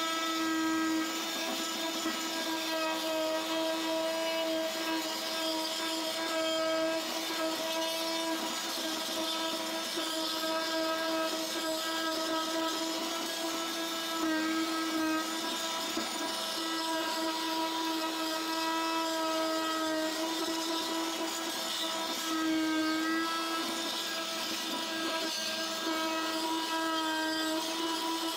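Fein Multimaster oscillating multitool with a segment saw blade, running steadily as it grinds old grout out of the joint between wall tiles. It makes an even hum with a gritty hiss, and its pitch dips briefly twice as the blade bites in.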